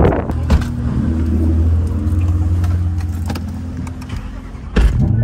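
Supercharged, straight-piped BMW M3 E90 4.0-litre V8 starting with a loud burst, then settling into a steady low idle. A sharp thump comes near the end.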